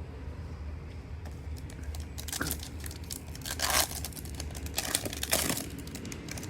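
A foil trading-card pack being torn open and crinkled: several short crinkling, tearing rustles, the loudest about halfway through.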